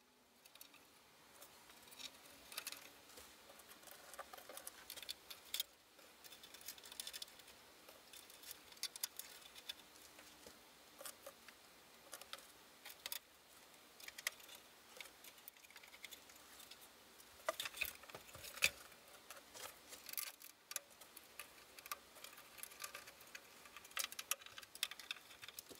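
Faint, scattered clicks and taps of small screws and a hand tool against the metal chassis and front panel of a Heathkit SB200 amplifier as the panel is screwed back on, with a few louder knocks in the second half.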